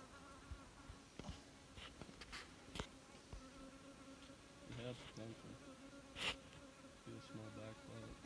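Faint buzzing of a flying insect, a steady hum that fades out, with a few soft clicks and rustles.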